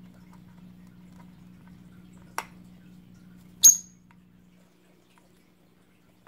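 One sharp, high chirp from a lovebird, very short, about three and a half seconds in, after a light tap about two and a half seconds in. A faint low hum stops soon after the chirp.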